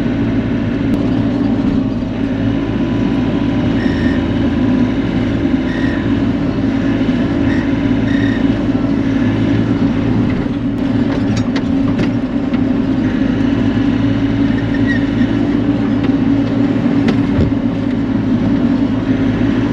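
Bobcat E42 mini excavator's diesel engine running steadily under work, with a few faint knocks about ten to twelve seconds in.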